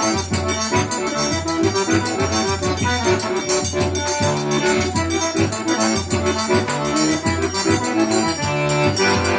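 Instrumental forró music: an accordion plays the melody over a bass line and a steady percussion beat.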